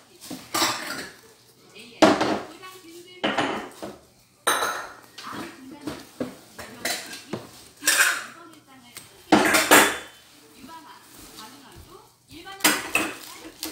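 Dishes and cutlery clattering and clinking in an irregular series of sharp knocks and rattles, with a short ringing after some of them.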